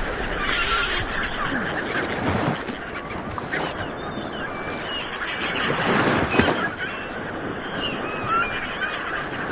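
Ocean waves washing on the shore, with a wave surging about six seconds in, while a flock of birds calls throughout in many short, repeated calls.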